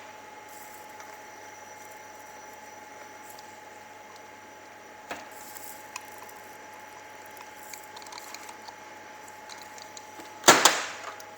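Steady background hum with a faint constant tone, a few small clicks and handling rustles, then a short, loud burst of noise about ten seconds in that quickly fades.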